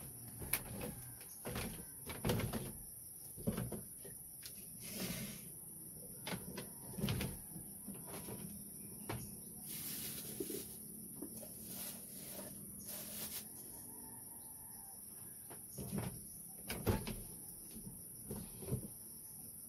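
Irregular knocks and thuds of bare feet shifting on a split-bamboo floor, with a steady high-pitched insect drone underneath.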